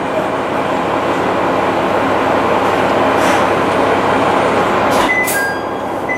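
Diesel railcar's engine running steadily while the train stands at a station, heard from inside the rear cab, with a brief sharp sound about five seconds in.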